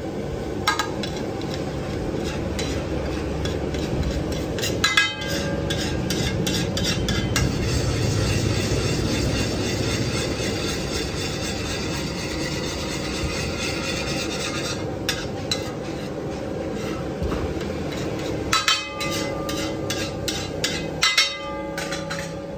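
Metal spatula striking and scraping against a hot pan while food fries with a steady sizzle. Bursts of rapid tapping come about five seconds in, briefly at fifteen seconds, and again near the end.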